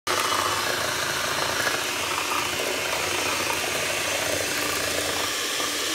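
Electric hand mixer running steadily, its beaters whipping cream in a bowl.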